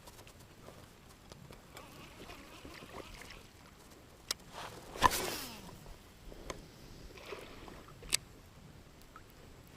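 Quiet background on a kayak with a few sharp knocks and clicks, and one louder, short rushing burst about five seconds in.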